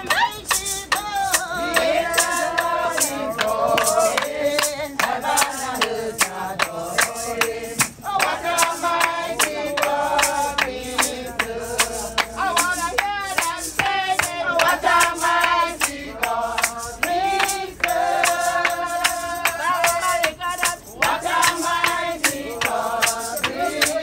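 A group of voices singing a gospel chorus together, with steady rhythmic hand-clapping keeping time.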